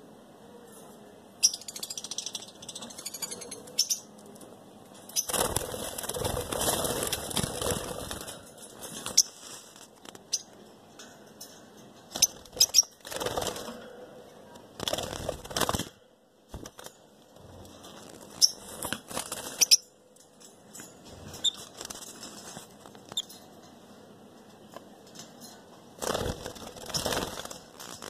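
Caged masked lovebirds flapping their wings in several bursts, the longest lasting about three seconds, with short high calls and clicks between the bursts.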